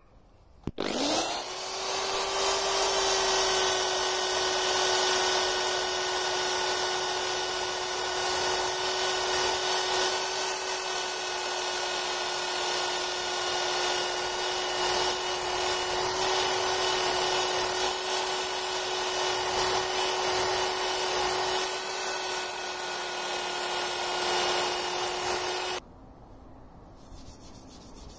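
Electric drill spinning a wire wheel brush against a boat propeller, scouring off rust and grime. It spins up about a second in, runs at a steady whine, and cuts off suddenly near the end.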